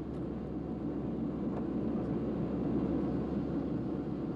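Steady low engine rumble with a constant deep hum underneath, holding even throughout.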